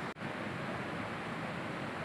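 Swift river rushing with a steady noise, cutting out for a moment just after the start.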